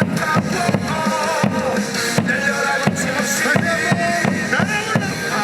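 Ballpark cheering song played loud over the stadium speakers, with a steady drum beat under a melody.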